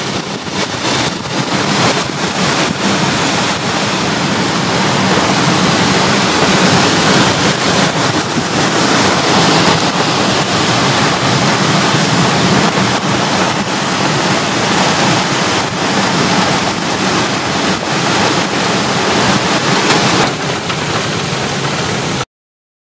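Thunderstorm wind gusting hard through trees and buffeting the microphone, with a steady hiss of rain. It cuts off suddenly near the end.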